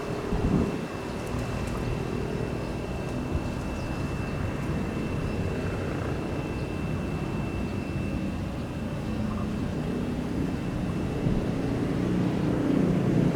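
Airliner jet engines running at a distance: a steady rumble with a faint thin high whine over the first half, growing a little louder near the end.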